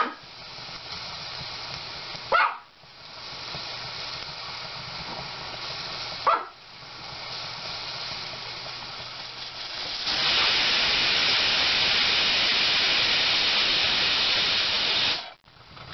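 Hawkins pressure cooker hissing steadily at its vent, with a dog barking twice. About ten seconds in, the pressure lifts the weight and steam blows off in a loud hiss for about five seconds, then cuts off suddenly: the cooker has come up to full pressure.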